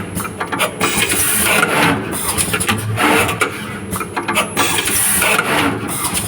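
Automatic wire cutting, stripping and soldering machine running through its repeating cycle: a steady mechanical whir with short hissy bursts about once a second.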